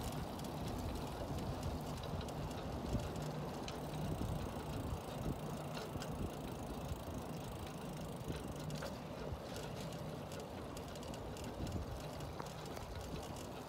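A bicycle rolling along a rough, gravelly asphalt path: steady tyre and road noise with scattered light rattles and clicks from the bike.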